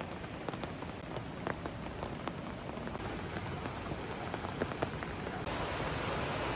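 Rain falling, a steady hiss with many separate drops ticking. About five and a half seconds in, the hiss becomes denser and a little louder.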